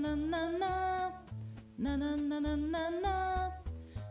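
Recorded children's song music: a melody of sliding, held notes over a steady bass line, in two phrases with a short break about a second and a half in.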